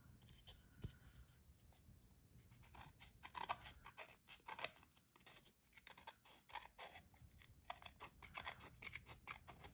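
Small scissors snipping along the edge of a laser-cut wood wall panel, trimming off overhanging paper wallpaper: a run of faint, quick snips, bunched about three seconds in and again near the end.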